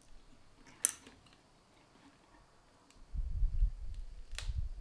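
Handling noise from a smartphone being worked apart by hand on a mat: a sharp click about a second in, then low bumping and rubbing from about three seconds in, with another click near the end.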